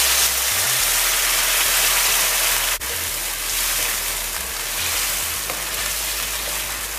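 Pumpkin cubes in hot oil in a nonstick wok sizzling as boiling water is poured in: a steady hiss, loudest at the start.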